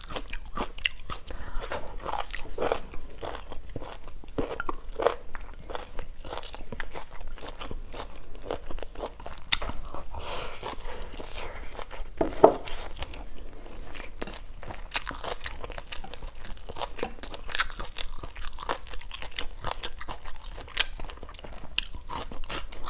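Close-miked chewing and crunching of stir-fried chicken gizzard, the gizzard firm and crunchy, with many small crackles as it is bitten. There is one louder knock about halfway through.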